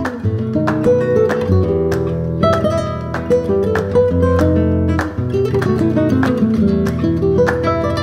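Background music: acoustic guitar strummed and plucked in a quick rhythm over a steady bass line.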